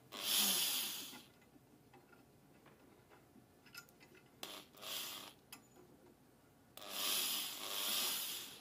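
Corded electric drill-driver running in short bursts as it turns a small bolt into a metal control housing, with a hissing, grinding whirr. Three runs: one at the start, a shorter one midway, and a longer one starting near the end, with faint clicks of handling between them.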